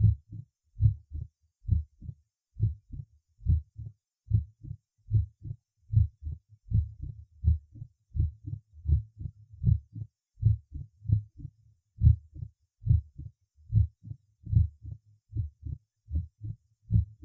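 Stethoscope recording of heart sounds at the apex in mitral stenosis: a regular beat of about 70 a minute, each beat a three-part rhythm of the first sound, the second sound and the mitral opening snap right after it, as the stiffened, fused mitral leaflets snap open at the start of diastole.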